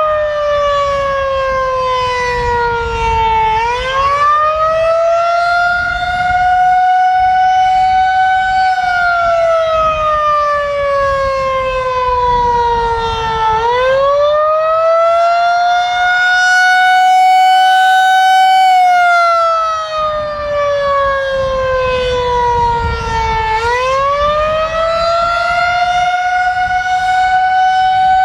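Federal Signal 2001-SRNB single-phase outdoor warning siren sounding the Attack signal: its loud tone rises quickly, holds at the top, then slides slowly down, wavering like this about every ten seconds, three times over.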